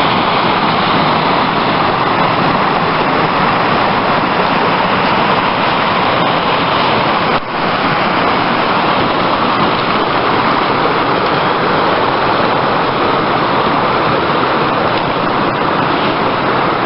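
Small mountain stream rushing and splashing over rocks close by: a loud, steady rush of water that drops out for an instant about halfway through.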